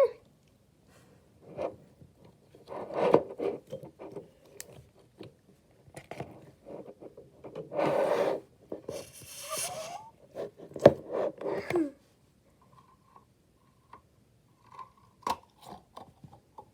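Crunchy bead-filled slime being squeezed and pressed by hand, giving irregular crackles, clicks and short squishy scrapes, with a quieter pause about three-quarters of the way through.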